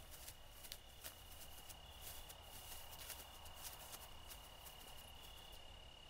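Near silence: faint outdoor night ambience with a thin, steady high-pitched tone and scattered soft ticks and rustles.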